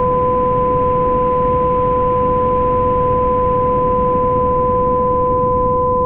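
Homemade binaural beat generated in Audacity: two steady pure tones, one an octave above the other, held over a constant rushing noise bed heaviest in the low end.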